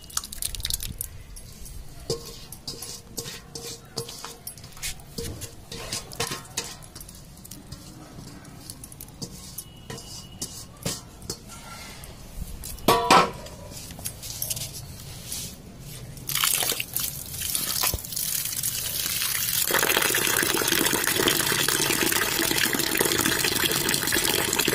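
Wet ground urad dal dripping and trickling through a cloth strainer, with one brief louder knock about halfway through. In the last few seconds water is poured steadily over the dal to rinse it.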